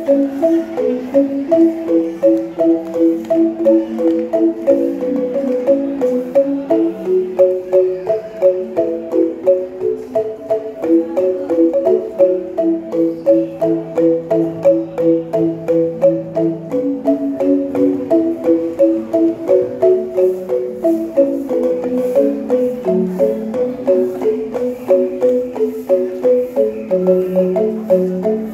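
Angklung music: a tune played with each note as a fast rattling tremolo, several notes sounding together over lower held notes.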